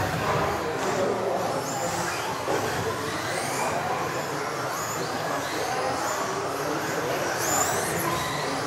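Electric RC off-road buggies racing in the modified class, their motors whining up and down in pitch as they accelerate and brake, with tyre noise from the hall floor.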